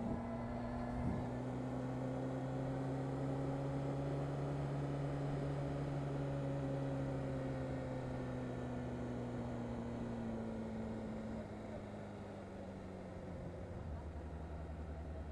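Honda CBR600RR's inline-four engine running under light, steady throttle while riding, heard from the rider's helmet over wind and road noise. Its note rises gently, then eases off and falls to a lower, steady note about two-thirds of the way through.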